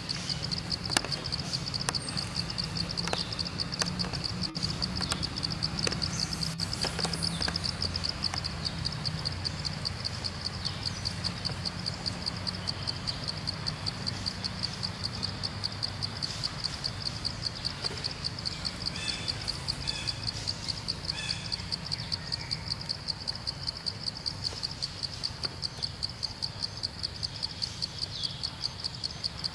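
Insects chirring: a steady high-pitched buzz that pulses rapidly without a break. A low hum lies underneath and fades about halfway through.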